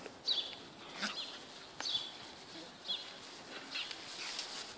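A small bird calling over and over: short, high chirps that fall in pitch, about one a second, with a few faint knocks between them.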